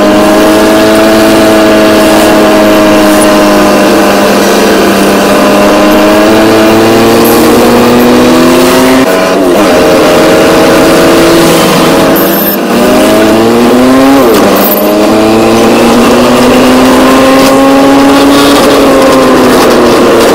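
Engine of a vehicle heard from inside while it drives. Its pitch climbs slowly as it gathers speed and drops sharply about 9 and 15 seconds in, as it shifts up.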